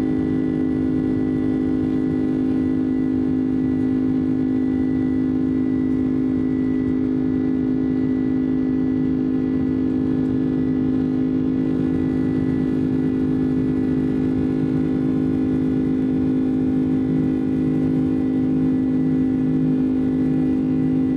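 Boeing 767-300 cabin noise in the climb after takeoff: the steady drone of the turbofan engines heard from inside the cabin, with a strong low hum and a thin high tone over a rumble.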